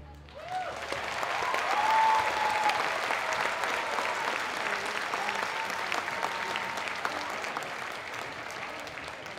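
Audience applause breaking out, building over about two seconds and then slowly tapering off.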